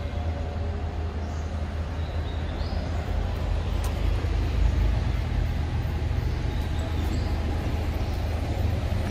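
Steady low rumble of distant road traffic, with a few faint high chirps and a single sharp click about four seconds in.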